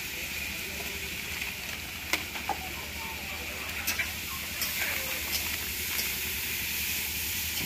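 Food sizzling steadily as it fries in a hot pan, with a few sharp clicks about two and four seconds in.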